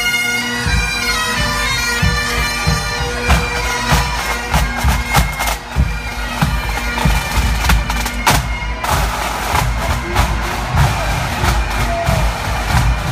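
A pipe band of Great Highland bagpipes and drums playing a march: the pipes' steady drone under the chanter melody, with a dense, driving beat of drum strokes.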